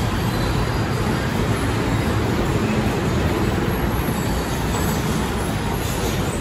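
Steady rumble and rail noise of a Bangkok MRT train, continuous and even, with no sudden events.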